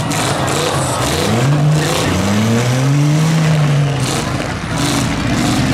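Pickup truck engines revving in a demolition derby. One engine climbs in pitch about a second in, then holds a long rise and fall over the next two seconds, over the noise of other trucks running.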